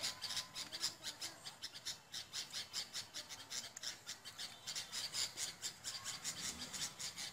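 A rapid, steady train of high rasping chirps, about six a second: an outdoor animal calling.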